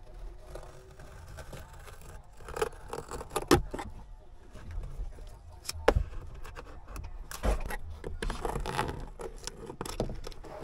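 A small blade scraping old wall covering off a wooden wall panel, in short irregular scrapes with a few sharp clicks and knocks in between.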